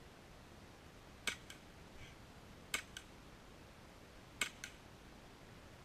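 Airsoft pistol fired three times, about one and a half seconds apart, each sharp shot followed a moment later by a fainter click.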